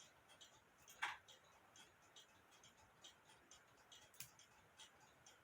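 Faint light clicks, a few a second, with one sharper click about a second in.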